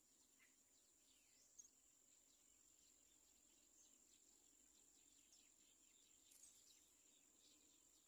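Near silence, with a faint steady high-pitched insect drone and scattered faint short bird chirps; a single brief click about a second and a half in.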